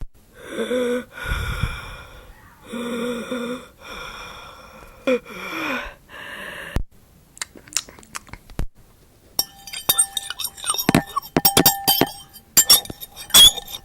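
A few drawn-out wheezy, squeaking vocal sounds, about a second each, then from about nine seconds in a rapid run of clicks and clinks like glass and metal knocking together.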